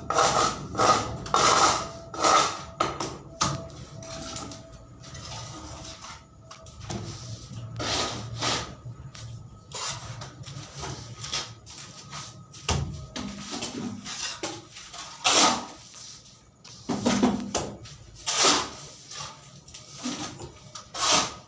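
Irregular knocks and clatter of hand-tool work on a construction job, some blows ringing briefly, a few louder ones in the second half.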